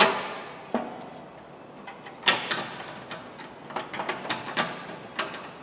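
Sharp metallic knocks and clicks from a sheet-steel fender section being fitted to the car body and held with locking pliers. There is a loud knock at the start and another about two seconds in, followed by a quick run of lighter clicks.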